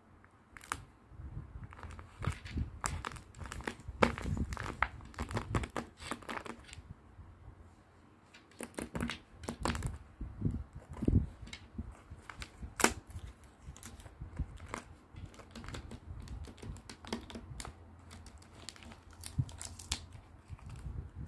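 Crinkling and rustling of tape-covered paper doll squishies and glossy paper clothing cutouts being handled and peeled off their backing sheet, with many irregular sharp clicks and taps and a short lull about eight seconds in.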